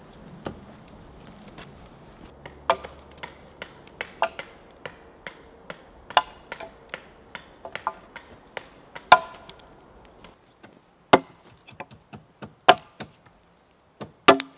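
An axe chopping into a log resting on a wooden trestle. It is a string of sharp, irregular knocks, lighter and quicker at first, then a few harder, louder blows spaced a second or more apart near the end.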